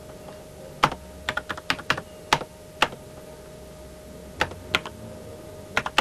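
Keystrokes on a computer keyboard, about fifteen in all, tapped singly and in short quick runs with pauses between, over a faint steady tone.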